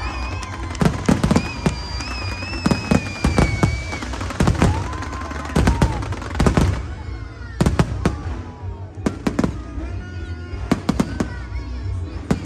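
Fireworks bursting in a rapid, irregular run of sharp bangs and crackles, with some clusters of quick pops. Music plays underneath with held melodic tones.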